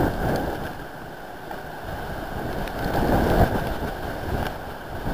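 Storm wind gusting and buffeting the microphone, a rough rushing noise that swells right at the start and again, louder, about three seconds in.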